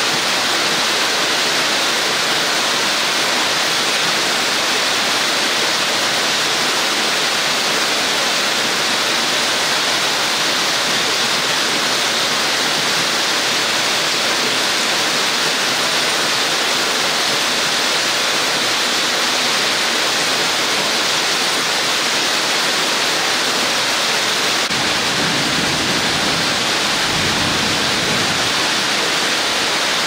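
Steady, even rushing hiss of rain and falling water, with a faint low rumble from about 25 seconds in.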